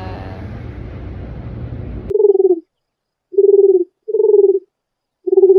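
Background street ambience that cuts off abruptly about two seconds in. It is followed by an edited-in sound effect of short, low, even-pitched calls, each about half a second long, with dead silence between them.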